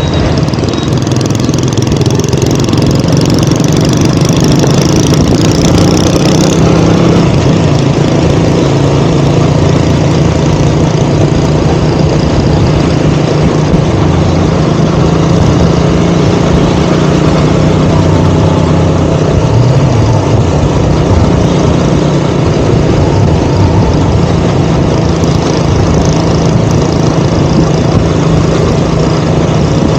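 KTM Duke 200's single-cylinder engine running at a steady, fairly low speed, with a brief rise in pitch about two-thirds of the way through.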